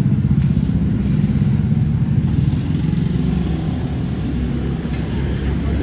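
Engine running steadily with a low, rapid throb.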